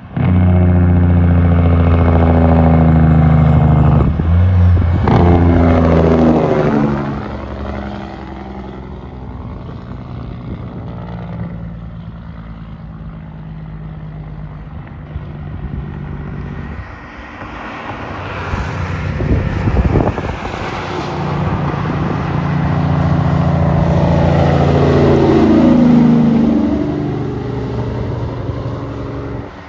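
Semi trucks passing with their compression-release engine brakes (Jake brakes) on: a loud, even, rapid exhaust chatter. The first pass is loud for several seconds and drops in pitch as the truck goes by. A quieter diesel rumble follows, then a second truck builds to a loud brake chatter that falls in pitch as it passes near the end.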